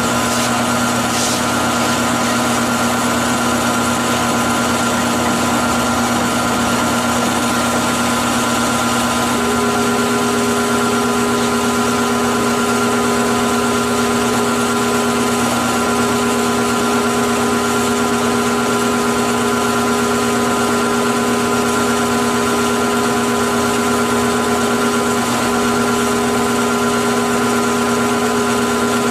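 Steady hum of electric shop motors: the buffing wheel and vacuum pump of a vacuum-clamp polishing setup, running continuously. A second, higher steady tone joins about nine seconds in.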